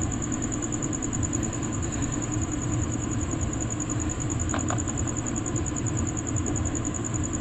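Steady low rumble like a distant engine, with a continuous high-pitched, rapidly pulsing trill over it. A faint click about four and a half seconds in.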